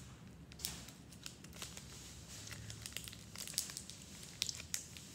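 A chocolate bar wrapper being crinkled and torn: a run of irregular sharp crackles.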